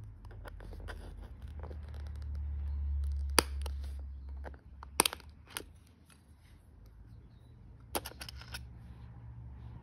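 Scattered sharp clicks and ticks of fine metal tweezers working at a MacBook Pro butterfly keycap, prying it off its clips. The loudest clicks come about three and a half and five seconds in, with a quick cluster near the end as the keycap comes free. A low rumble of handling noise fades out about halfway through.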